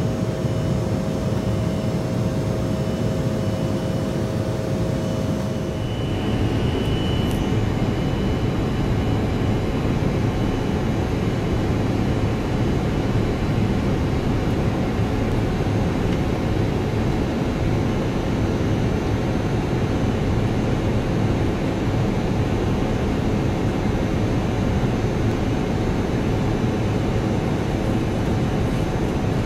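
Steady rumble of engines and rushing air inside an airliner's cabin in flight. A faint steady hum heard at first stops about six seconds in, where the noise shifts slightly.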